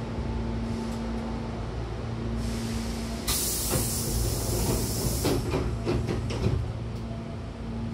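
Hankyu train's air-operated double sliding doors closing: a loud rush of air hiss from the door engine about three seconds in as the panels draw shut, then several knocks as the two leaves meet and lock. A steady low hum from the standing train runs underneath.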